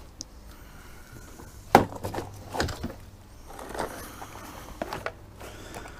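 Tools being handled and sorted, likely sockets being picked through for the right size: a few separate clinks and knocks, the loudest about two seconds in.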